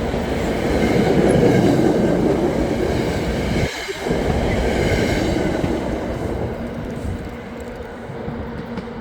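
NJ Transit commuter train hauled by an ALP-45DP locomotive rolling past, its wheels clattering over the rails under a steady low hum. The rolling noise fades from about six seconds in as the train moves off.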